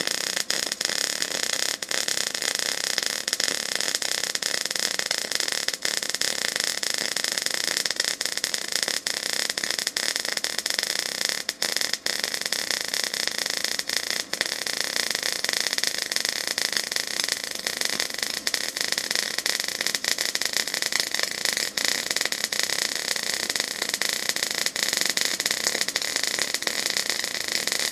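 MIG welding arc in short-circuit transfer running a root pass with 0.035-inch ER70S6 steel wire from an Eastwood MIG 250: a steady, dense crackle as the wire repeatedly shorts into the weld pool.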